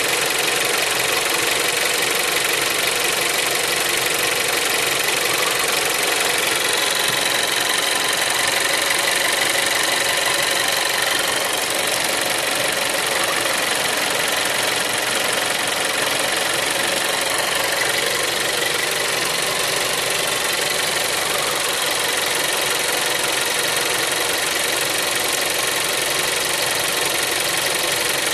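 SEAT Leon Mk3 (5F) 1.4 TSI 140 engine, a four-cylinder turbocharged petrol, idling steadily with an even running sound.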